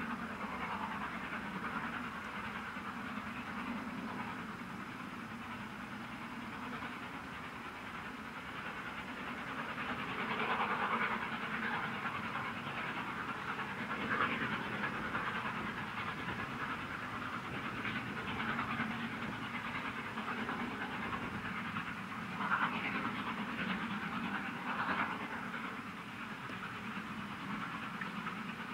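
LNER V2 class three-cylinder steam locomotive working a passenger train, its exhaust chuffing steadily, with a few louder beats along the way.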